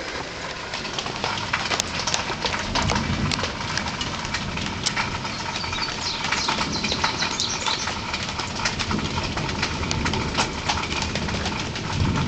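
Rain falling and dripping after a thunderstorm: a steady wash with a dense scatter of small drop hits.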